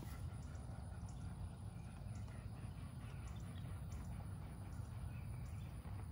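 Steady low rumble of wind on the microphone with faint outdoor background, and no distinct event standing out.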